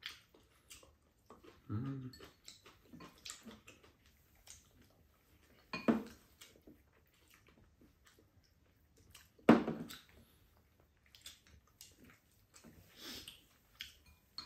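Sporadic mealtime noises: spoon and chopsticks against bowls and chewing, with a short murmur about two seconds in, a sharp sound about six seconds in and a louder sharp one about nine and a half seconds in.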